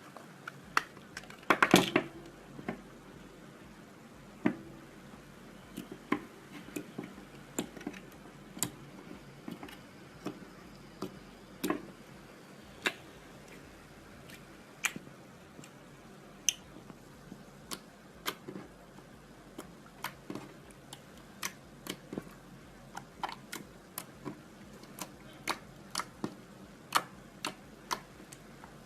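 Slime being handled, giving sharp little clicks and pops at irregular intervals, with a quick run of them about two seconds in.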